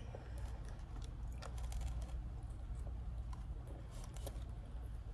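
Scattered small clicks and rustles of hands picking food out of a takeout tray, over a steady low hum.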